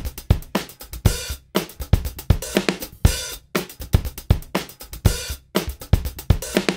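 Background music with a steady drum-kit beat: kick drum, snare, hi-hat and crashing cymbals.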